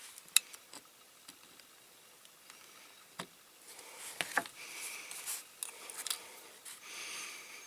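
Small tools and parts being handled at a workbench while a rivet is fitted to a diecast model: a few sharp light clicks and taps, with stretches of scraping between about four and seven and a half seconds in.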